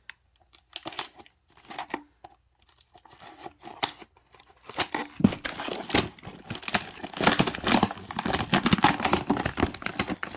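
Wrapping on a sleeve of firework canisters being torn open and crinkled by hand: a few scattered crackles at first, then dense crackling and tearing through the second half.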